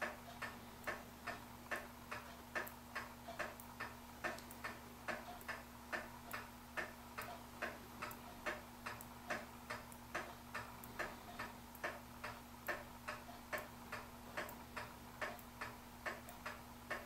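Vintage pendulum kitchen clock ticking steadily and evenly, its movement freshly cleaned and oiled and left running to settle in.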